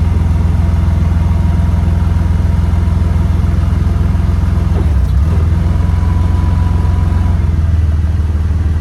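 Engine of a piece of heavy industrial equipment running steadily with a deep, low hum, shifting slightly about five seconds in.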